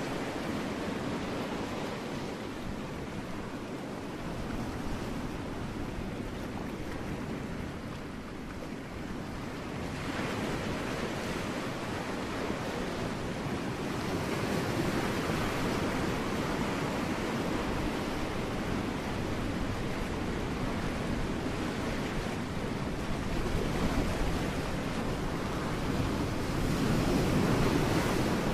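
Ocean waves breaking on rocks, a continuous rushing wash that eases off about a third of the way in, then swells again and surges loudest near the end.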